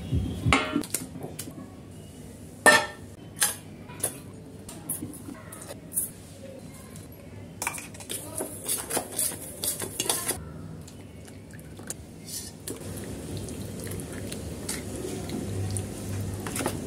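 A metal spoon clinking and scraping against a stainless steel mixing bowl: scattered sharp clinks, then steadier stirring through a wet marinade of raw chicken over the last few seconds.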